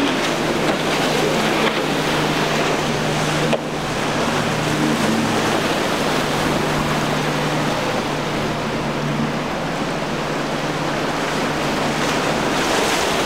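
Single outboard engine on a cabin fishing boat running steadily through the inlet, a low drone under the loud rush of breaking surf, spray and wind.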